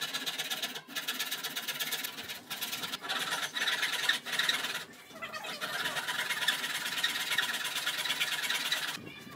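Fine-toothed hand saw cutting into a hardwood block, a steady rasp of the teeth through the wood with a few brief pauses between runs of strokes.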